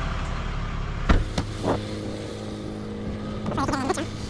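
Tow truck's engine and road rumble, then a sharp thump and two lighter knocks about a second in. After that the engine idles with a steady hum.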